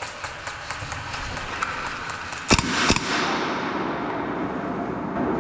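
Scattered light ticks and clicks, then two sharp bangs a few tenths of a second apart about halfway through, followed by a steady rushing noise, during an airsoft skirmish.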